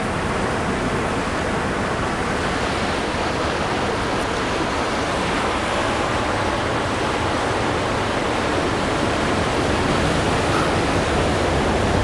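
Ocean surf washing against a rocky shore: a steady rushing noise that grows a little louder in the second half.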